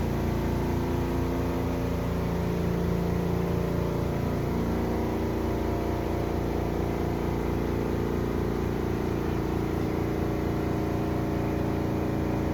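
Portable washing machine's spin dryer running with a load of clothes and jeans: a steady, fairly quiet motor hum with a fast low pulse, its tone shifting slightly about four seconds in.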